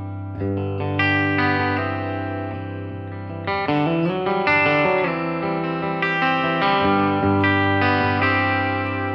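Electric guitar played through a Blackstar HT-5R MkII 5-watt valve combo on its clean channel: several strummed chords left to ring out, with the pitch wavering briefly about midway.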